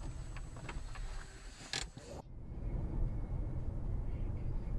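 Road and engine rumble inside a moving car picked up by a dashcam, with a few sharp clicks. About two seconds in, the sound switches abruptly to a duller, steady road rumble that slowly grows louder.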